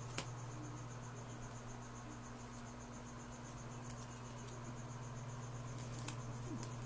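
Quiet room tone: a steady low hum with a faint, rapidly pulsing high-pitched chirr, like an insect, and a few soft clicks.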